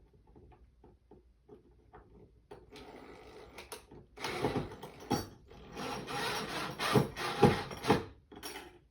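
Power drill boring a pilot hole, running in uneven bursts from about two and a half seconds in, after a few faint clicks of handling.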